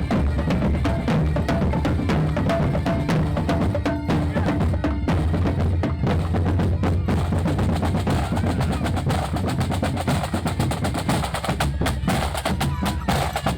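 Music driven by loud, dense drumming, with a steady low bass underneath.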